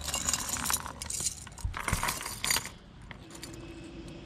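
Metal chain fish stringer jangling, its snap clips clinking, as fish are unclipped from it, with two dull thumps about two seconds in; the clinking stops just before three seconds.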